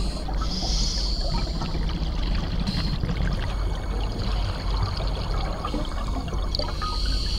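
Underwater scuba-diving sound: a steady bubbling crackle over a low rumble. A hiss comes in about half a second in and again near the end.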